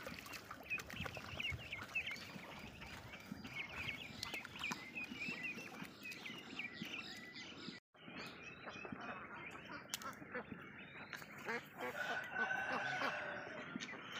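A brood of ducklings peeping, many short high cheeps in quick succession. After a brief break about eight seconds in, adult ducks call, with one longer, drawn-out quack near the end.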